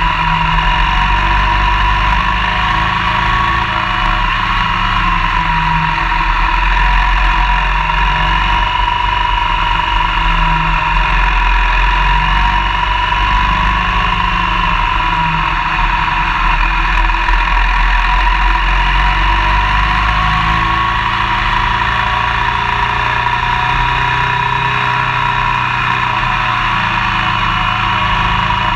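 Motorcycle riding at steady road speed through bends, its engine running with a high steady tone that drifts gently up and down, over a constant low rumble of wind and road noise.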